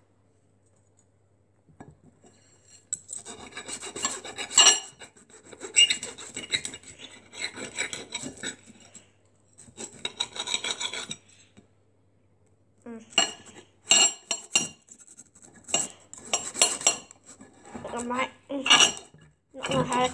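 Metal knife and fork scraping and sawing against a plate while cutting pancakes, in irregular rasping spells with short pauses.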